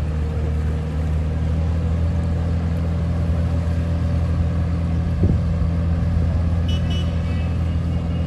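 Amphicar's small four-cylinder engine running steadily as it motors through the water, a low even drone. A brief knock about five seconds in.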